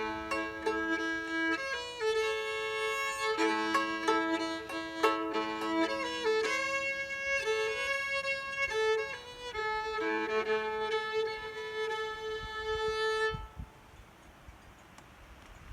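Old-time fiddle playing the last phrases of the tune, often sounding two strings at once, and ending on a held note about 13 seconds in.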